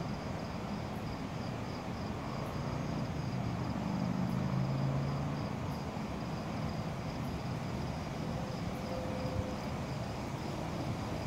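Distant diesel locomotives, an EMD GP60 leading, giving off a low engine rumble that swells slightly about four to five seconds in, under the even pulsed chirping of crickets.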